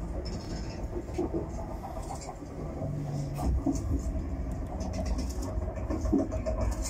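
Steady low rumble with scattered clicks and knocks inside a railway carriage, like a train carriage running on the rails.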